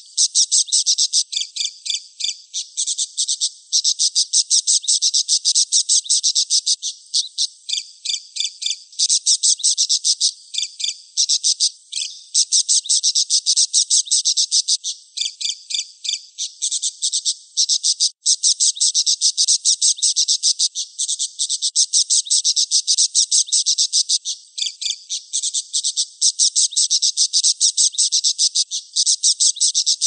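Budgerigar chattering: a fast, continuous stream of high, rapid notes with brief breaks every few seconds.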